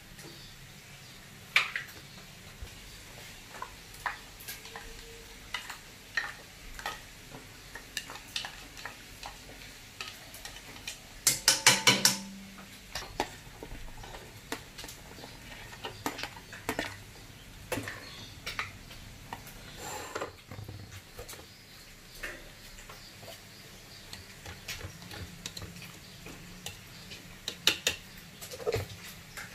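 Utensils clinking and scraping against pots and pans during cooking: scattered single clinks, with a quick run of loud clatters about eleven seconds in and a few more near the end. A faint frying sizzle sits underneath.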